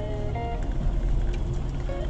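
Background music: a melody of short held notes moving over a steady low bass.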